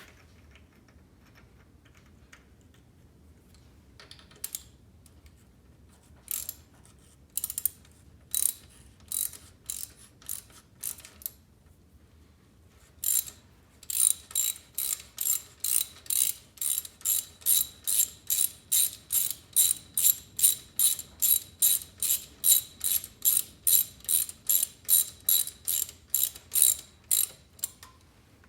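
Hand socket ratchet clicking as it turns a tap to chase out dirty threaded holes. A few scattered strokes at first, then a steady run of about three quick ratcheting strokes a second from about halfway through, stopping just before the end.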